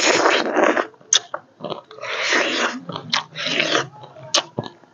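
Close-up mouth sounds of a person eating pomegranate arils straight off the rind: three long slurps as the seeds are sucked off, one at the start, one about two seconds in and one about three and a half seconds in, with short clicks of biting and chewing between them.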